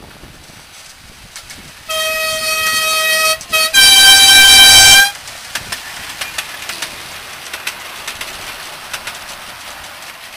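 Ride-on miniature diesel locomotive, a model of a BR class 25/27, sounding its two-tone horn: a lower note for about a second and a half, a short blip, then a louder, higher note for just over a second. After the horn, its wheels click over the rail joints as it passes.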